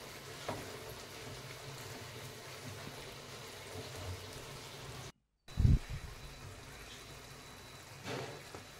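Mutton keema and potatoes cooking in a kadhai, a faint steady sizzling hiss as a spatula stirs them. Just past the middle the sound drops out for a moment and a dull low thump follows.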